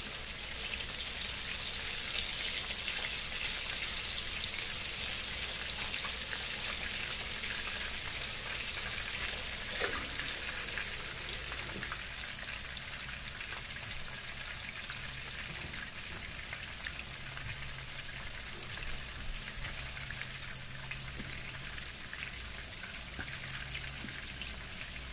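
Hot oil sizzling and crackling steadily around flour-coated round scad (galunggong) pan-frying in a shallow layer of oil.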